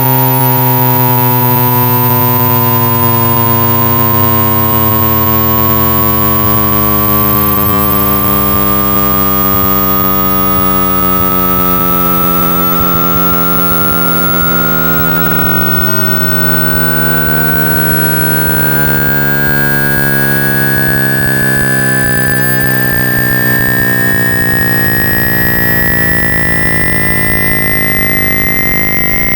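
Electronically generated speaker-cleaning tones meant to shake trapped water and dust out of a phone speaker. A loud pure tone sweeps slowly upward in pitch over a dense cluster of other tones, a low steady hum and a hiss of noise.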